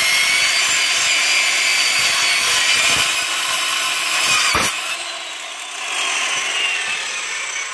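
Corded circular saw cutting through a wooden board with a steady, high whine. About four and a half seconds in the cut ends with a sharp knock, and the blade winds down with a slowly falling whine.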